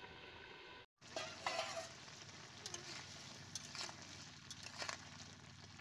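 Crab curry sizzling and simmering in an iron kadai as a metal ladle stirs it, scraping and clinking against the pan a few times after a brief break about a second in.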